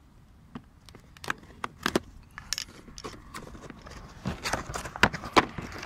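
Plastic wrapping of a new engine air filter being torn open by hand: irregular crinkling and sharp crackles, loudest about five seconds in.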